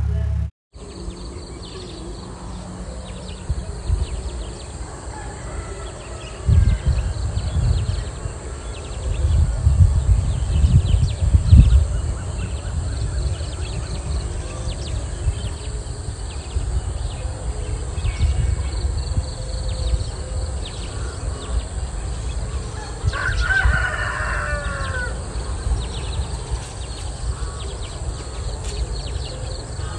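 Outdoor rural ambience: wind rumbling on the microphone, strongest from about 6 to 12 seconds in, under a steady high hiss, with a single bird call about 23 seconds in.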